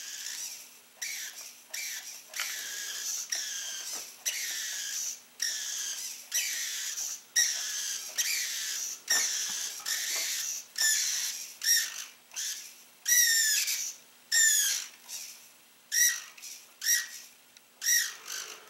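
Throttle servo of a Traxxas nitro R/C truck whirring as it swings the throttle linkage back and forth between forward and reverse. It comes as a run of short, high whines, roughly one a second, many gliding up or down in pitch.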